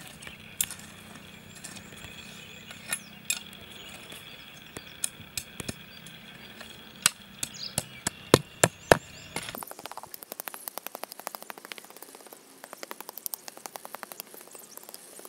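Machete blade knocking and clinking against the stones buried in a red-sand cooking pit, in sharp irregular strikes that come thickest about eight seconds in. A little before ten seconds the low background drops away and a fast run of light ticks takes over.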